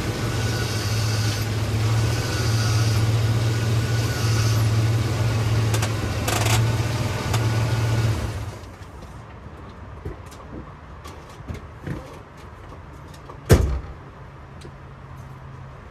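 A vehicle engine running steadily, then going quiet about eight and a half seconds in; after it a few light clicks and one sharp knock near the end.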